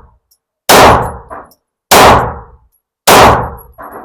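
9mm pistol fired three times at a steady pace, about one shot every 1.2 seconds. Each report rings briefly, and a fainter bang follows two of the shots.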